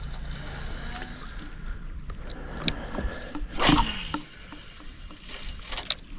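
Knocks and handling noises aboard a small fishing boat over a steady low rumble, with scattered clicks and one louder knock about halfway through.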